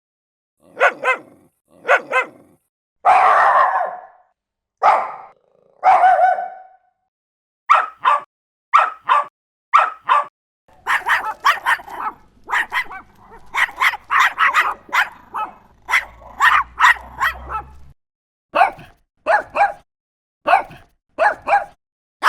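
Small dogs barking: sharp, short barks, a few longer drawn-out ones early on, then a quick run of barks over a faint low hum in the middle, then single barks spaced about a second apart.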